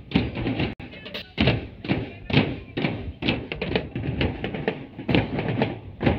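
Marching drum band playing: snare and bass drums beating a steady marching rhythm, about two strong hits a second with quicker strokes between. The sound drops out for an instant just under a second in.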